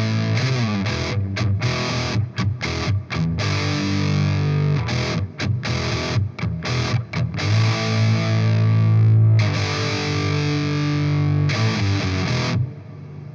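Electric guitar played through the Playwell Tank-G multi-effects pedal on its preset 4D, a heavily distorted tone. Short chopped chords give way to longer held chords, and the playing stops suddenly near the end.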